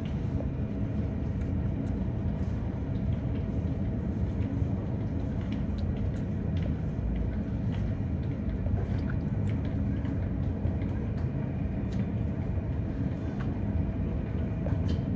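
Steady low rumble of a vehicle heard from inside while it moves, with a faint steady hum above it.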